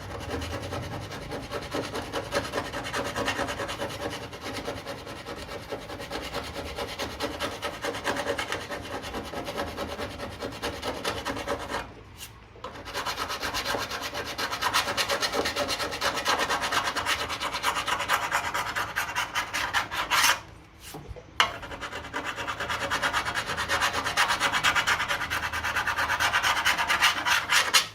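Hand body file rasping back and forth over a welded steel sill repair patch in quick strokes, with two short pauses, knocking down spots that stand high before filler goes on.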